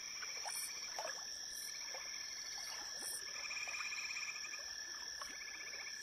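Night chorus of frogs and insects: a steady high insect whine with short rapid trills repeating every second or two and scattered brief calls.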